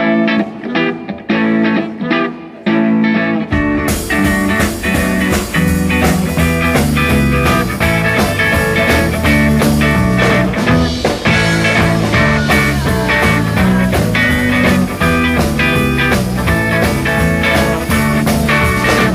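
Rock band playing together live: a guitar part alone at first, then bass and drums come in about three and a half seconds in and the full band plays on.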